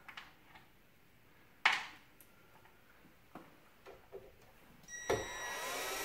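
Handling noise with one sharp knock a little over a second and a half in. About five seconds in, a cordless drill-driver starts whirring as it drives a screw into the mini-split indoor unit.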